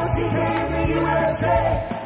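Upbeat 1980s-style pop-rock with a group of voices singing together over a steady bass line and drums.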